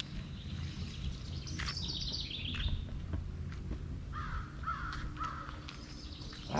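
Wild birds calling in woodland: a quick falling trill of high chirps about two seconds in, then three repeated lower calls about four seconds in, over a low steady rumble.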